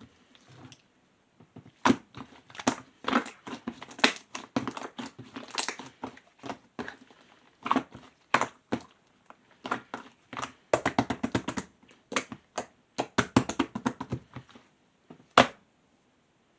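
Clear slime being squeezed and pressed by hand, making bursts of rapid wet clicks and pops with short pauses between them.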